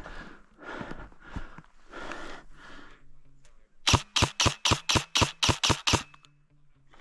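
Reloading an airsoft replica: a quick, even run of about ten sharp, loud clicks, about five a second, comes a few seconds in, after some soft rustling and scuffing.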